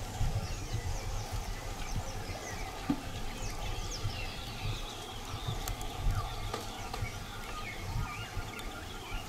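Rainforest clearing ambience: many birds chirping and calling in short rising and falling notes, over a faint steady insect drone and an uneven low rumble.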